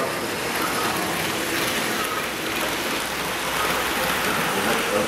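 Model trains running on a layout's tracks: a steady, even rattling rush of small wheels on rails.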